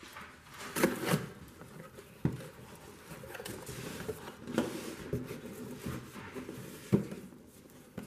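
Small parts being handled and worked at a bench: scattered knocks and taps with rubbing between them, the sharpest knock about seven seconds in.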